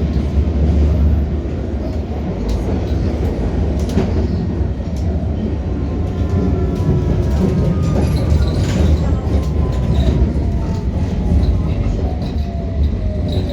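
Metropolitan line S8 Stock underground train running, a heavy steady rumble in the carriage. From about halfway through, a thin whine of several tones falls slowly in pitch: the whistling sound that the title calls weird.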